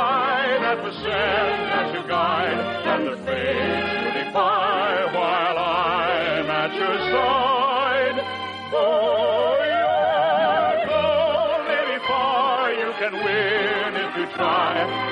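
Operetta music played by an orchestra: a wavering melody with strong vibrato over a bass line that moves in separate notes. The sound is narrow and thin, like an early-1950s radio broadcast recording.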